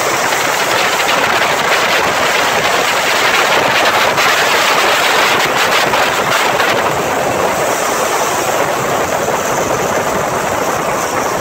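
Loud, steady engine and road-and-wind noise from vehicles driving at speed in an auto rickshaw race, with the higher part of the noise easing slightly about seven seconds in.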